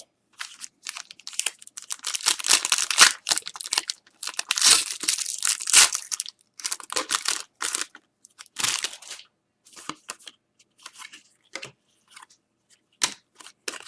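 Hockey trading-card pack wrapper being torn open and crinkled, in two longer stretches of rustling, followed by shorter scattered rustles and clicks as the pack is handled.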